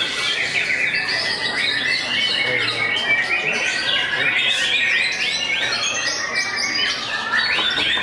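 Caged white-rumped shamas (murai batu) singing: a rapid, unbroken stream of overlapping chirps and whistles, loud and high-pitched.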